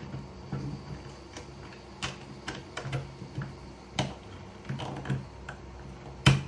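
Irregular small clicks and taps of 3D-printed plastic tool-head parts and wiring being handled and fitted together by hand, with one sharper, louder click near the end.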